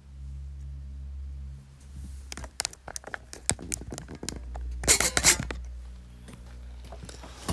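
Handling noises: a run of small clicks and rustles, with a louder rustle about five seconds in, over a steady low electrical hum.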